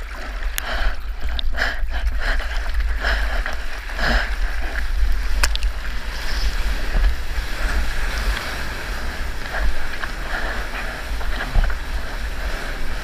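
Whitewater rushing and splashing around a surfboard, heard close to the board's nose, with wind buffeting the microphone as a steady low rumble and short splashes throughout.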